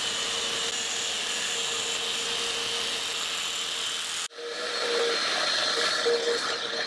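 Vacuum running through a ribbed hose drawn over the pile of a tufted rug, a steady whooshing hiss with a held hum. It drops out suddenly a little over four seconds in, then runs again with the hum wavering.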